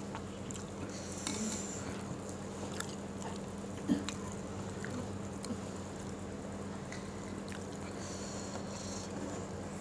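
Close-miked eating sounds: wet chewing and lip smacks with small clicks, one sharper tick about four seconds in. A steady low hum runs underneath.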